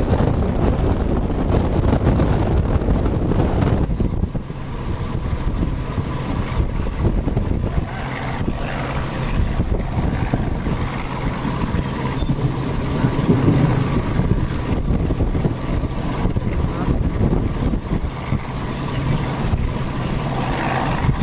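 Strong wind buffeting the microphone for the first few seconds, then from about four seconds in a steady vehicle road noise with a faint hum as the car drives.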